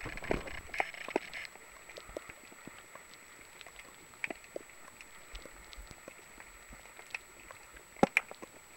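Camera in its underwater housing on a hand line making a racket of irregular clicks and crackles as it bumps the seabed and its autofocus works, busier in the first second and a half, with two louder knocks about eight seconds in. A faint steady high whine runs underneath.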